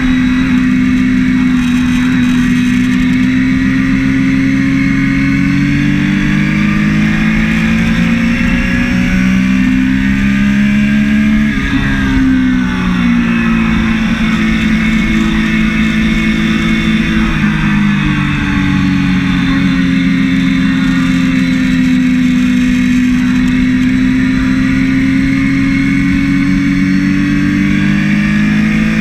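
Triumph Daytona 675 three-cylinder engine running hard under the rider's throttle. Its note dips and climbs back a little before halfway, then eases down and slowly rises again through the second half.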